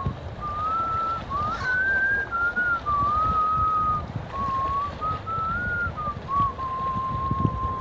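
A person whistling a slow tune, holding each note and stepping between pitches, with short breaks between phrases, over a low rumble.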